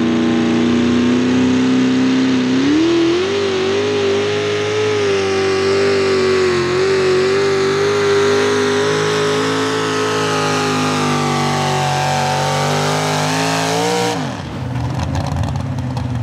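A 2WD pulling truck's engine run at full throttle under load. Its pitch climbs about two and a half seconds in and holds with a slight waver, then the throttle is cut near the end and the pitch falls away quickly, the sign that the pull has ended.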